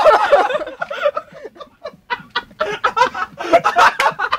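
People laughing in short, breathy bursts just after taking a shock from an electric fence.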